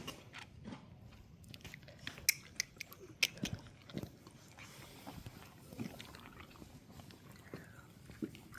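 A horse chewing, with irregular crunches and clicks.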